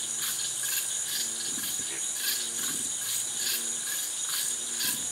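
Evening insect chorus of crickets: a steady high-pitched trill with chirps repeating about twice a second.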